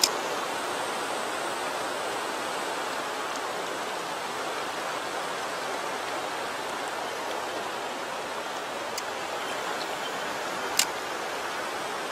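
Shallow mountain stream running over rocks, a steady rushing, with a few sharp clicks, the loudest about eleven seconds in.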